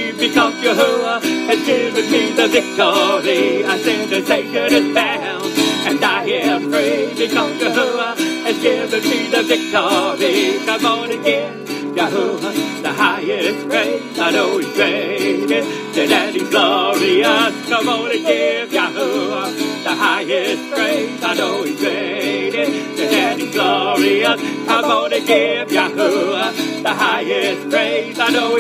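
Gospel praise music playing, full and steady, in a stretch without sung words.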